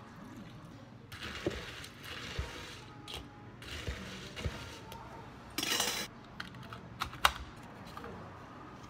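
Ice cubes rattling and clinking in a tall plastic cup as iced cold brew coffee is stirred with a long metal spoon, in several scraping bursts. Then a few sharp clicks and knocks of plastic as the cup is handled.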